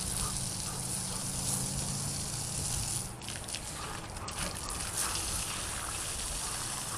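Garden hose spray nozzle jetting water onto a wet concrete floor: a steady hiss and splash that dips slightly about three seconds in.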